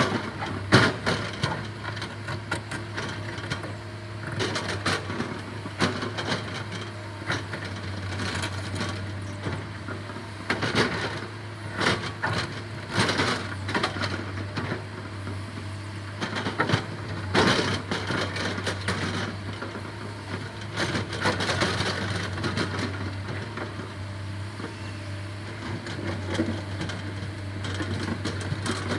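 Excavator digging: its diesel engine drones steadily under irregular cracking and crunching as the bucket breaks through soil and stones.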